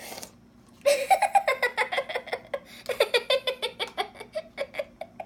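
A child giggling: a long run of quick laughs starting about a second in and tailing off toward the end.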